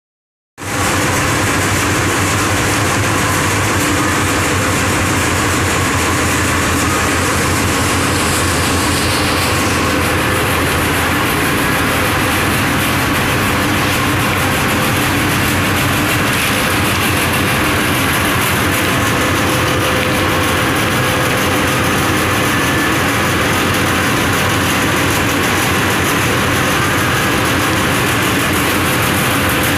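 Continuous mesh-belt veneer dryer running: a steady, loud mechanical drone with a faint steady hum tone, unbroken throughout.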